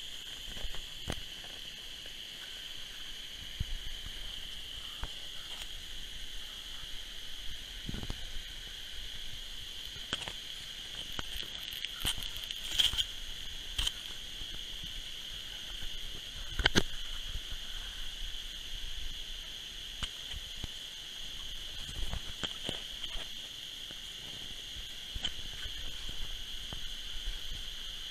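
Small electric water pump of a toy fire truck whining steadily at a high pitch while it drives a thin jet of water, with scattered clicks and knocks throughout.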